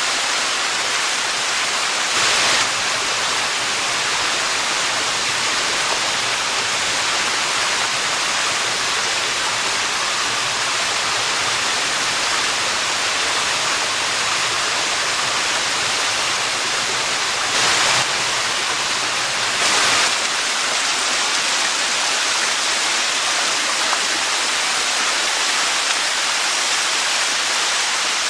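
Waterfall: a steady, loud rush of falling water, with three brief louder surges.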